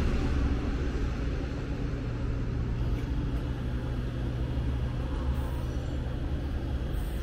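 Diesel engines of a DB Class 643 Talent railcar pulling away, a steady low hum that slowly fades as the train recedes.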